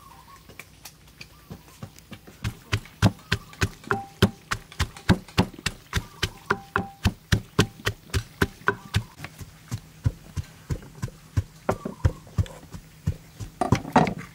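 Wooden pestle pounding chillies and garlic in a clay mortar, steady thuds at about three strikes a second, growing louder about two seconds in.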